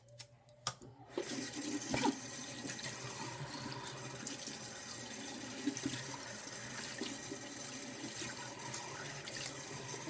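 Bathroom sink tap running steadily, starting about a second in, with a few small knocks and clicks over the water.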